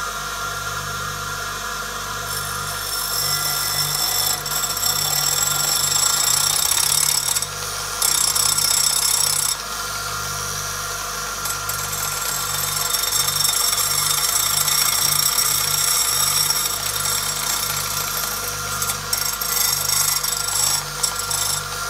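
Bench grinder motor humming steadily while its stone wheel grinds against a chain-saw-chain sharpening disc held on an unplugged angle grinder. The wheel spins the disc up and dresses its worn face true, a harsh abrasive hiss that starts about two seconds in and comes and goes as the disc is pressed on and eased off.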